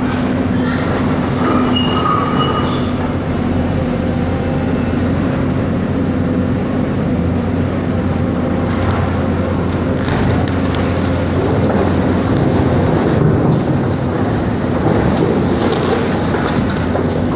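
Hyundai hydraulic excavator's diesel engine running steadily under load as the bucket comes down on a concrete dock float, with a brief high squeal about two seconds in. From about halfway through come bursts of crunching and cracking as the bucket presses into the concrete and foam.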